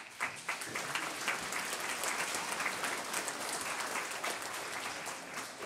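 Audience applauding, many hands clapping, breaking out at once and carrying on steadily, easing slightly near the end.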